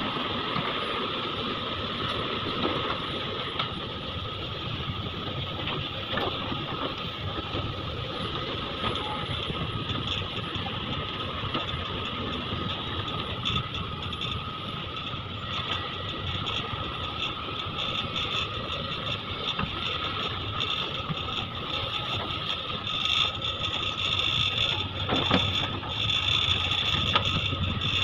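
Sumitomo SH350 hydraulic excavator at work: its diesel engine and hydraulics running with a steady whine, light knocks scattered through, growing louder in the last few seconds as it digs.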